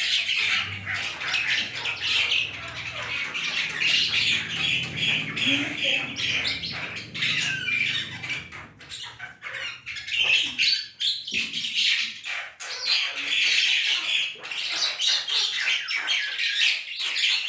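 Jalak hitam (black myna) giving a continuous stream of harsh squawks and chattering calls, the kind of calling used as a lure to draw a response from other mynas.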